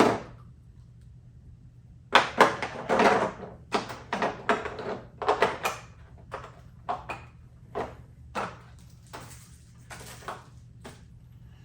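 Small metal hand tools and their plastic case being handled: an irregular run of clicks, clacks and knocks, starting about two seconds in, as pieces are picked up and set back.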